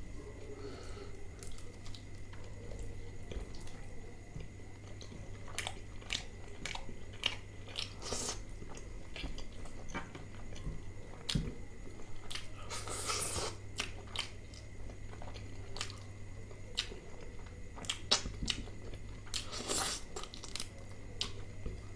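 Close-miked eating sounds: fingers squishing through thick butter chicken gravy and pulling apart chicken, with many small wet clicks and smacks. Near the end a bite is taken and chewing follows.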